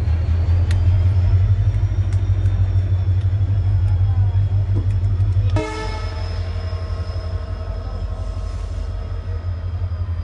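A departing passenger train runs with a heavy low rumble, then about five and a half seconds in its locomotive horn sounds and is held as one long steady blast.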